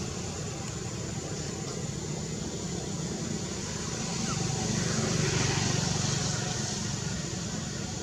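Steady low background rumble that swells about four seconds in and eases off again, with a faint steady high tone above it.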